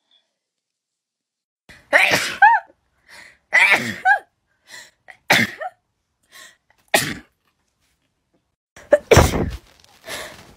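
A person sneezing, about five loud sneezes in a row with shorter pauses between them, some ending in a short voiced cry.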